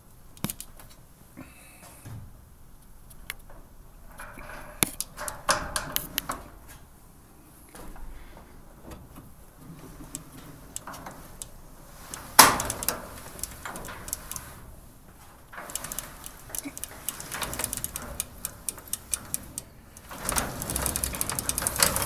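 Garage door going up on its cable-and-pulley system, with ball bearings clicking and ticking as it moves and no grinding from the lift cable winding onto the drum: the pulley, now free to slide along a 3-inch bolt, lets the cable wind on without rubbing against itself. One sharp knock about twelve seconds in, and a denser rattle near the end.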